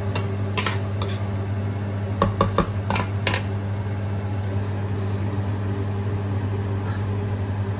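Metal spoon clinking and scraping against a stainless steel frying pan while stirring thick, simmering tomato sauce: a series of sharp clinks over the first three and a half seconds, then the spoon is still. A steady low hum runs underneath.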